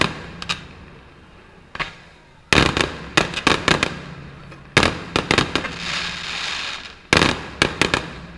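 Firework shells bursting: loud bangs in clusters about every two seconds, each followed by a quick run of smaller crackling pops, with a longer drawn-out crackle a little past the middle.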